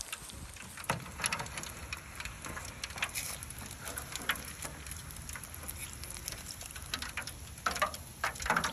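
Hot oil sizzling and crackling with many small scattered pops as pork belly fries in a disposable aluminum tray. A few louder clicks come near the end.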